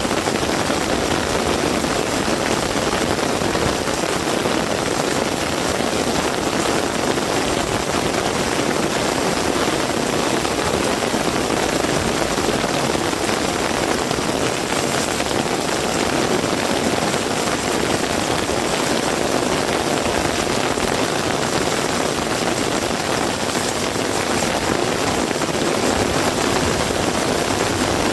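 Heavy rain falling steadily, a continuous even hiss of rainfall.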